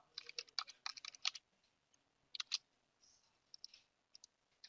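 Faint computer keyboard clicks as a password is typed: a quick run of about ten keystrokes in the first second and a half, then two more clicks about a second later and a few fainter ticks.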